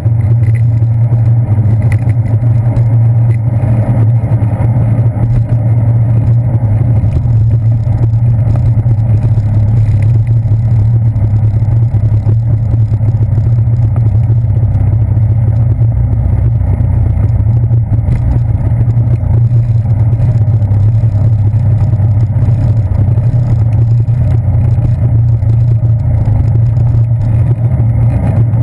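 Steady, loud low rumble of a bicycle ride heard through a handlebar-mounted GoPro: tyre and road vibration coming up through the handlebars, mixed with wind on the camera.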